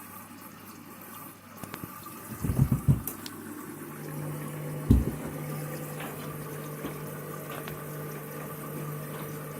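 Washing machine mid-cycle with water running into it and a steady low hum. The hum drops out for a few seconds and comes back about four seconds in. A few heavy low thuds come from the machine around two and a half seconds in, and one more at about five seconds.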